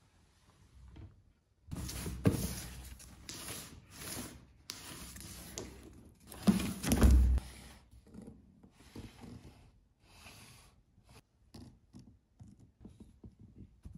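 Cardboard box being handled and turned on a table: rustling and scraping, with a heavy thump about halfway through, then light taps and clicks.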